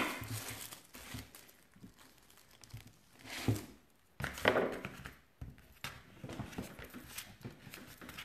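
Quiet handling sounds of sugarpaste being cut with a plastic modelling tool and worked between the hands, with scattered rustles and soft knocks. There is a sharp knock right at the start and two louder bursts a little past the middle.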